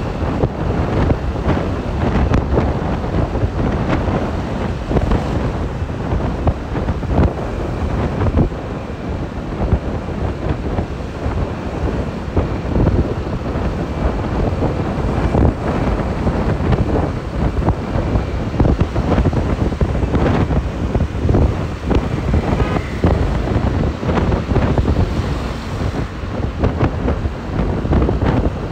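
Heavy wind buffeting the microphone of a camera moving along a road, a loud, fluttering rush that never lets up, with road traffic underneath.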